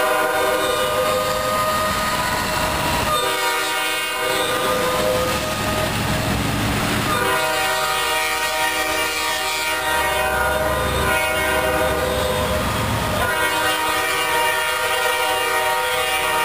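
Diesel locomotive air horn sounding a chord in a series of long blasts with short breaks, as Norfolk Southern locomotives move away. A low engine and rail rumble runs under the horn.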